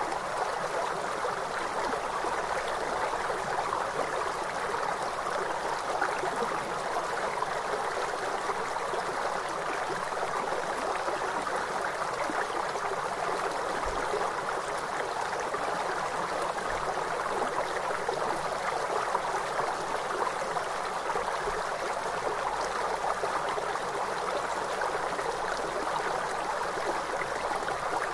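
Flowing river water: a steady, unbroken rush that is mostly mid-pitched, with little deep rumble.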